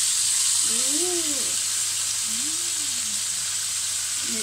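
Chicken leg quarters frying in an open double-sided non-stick grill pan, a steady sizzling hiss.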